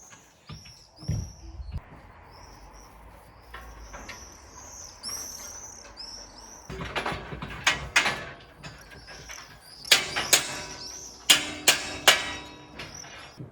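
Building work: a series of sharp knocks, loudest and most frequent in the second half, among many short high-pitched squeaks.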